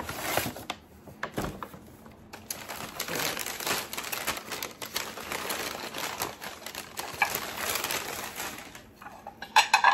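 Rustling and quick light clicks and taps from handling heavy square dinner plates as they are unwrapped and moved about.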